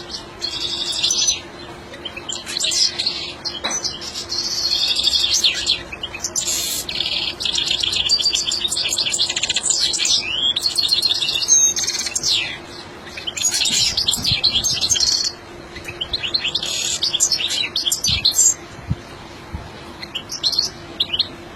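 European goldfinch singing: fast, high twittering phrases a few seconds long, broken by short pauses.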